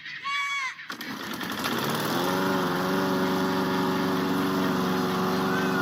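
A goat bleats briefly at the start. Then an engine comes in, rising in pitch for about a second before running steadily.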